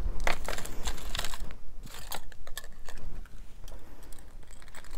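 Costume jewelry clinking and rattling as it is handled and set down: a metal chain necklace with blue stones and other small pieces knocking together in a quick run of small clicks that thins out after about a second and a half.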